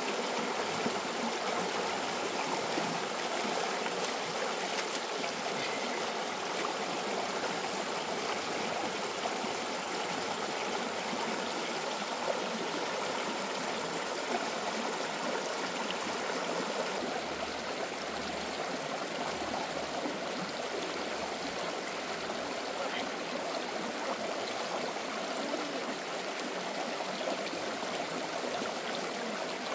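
Stream water flowing steadily, an even rush with no break.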